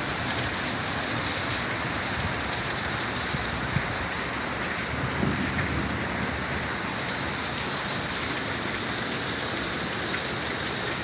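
Steady rain falling onto water: an even, unbroken hiss.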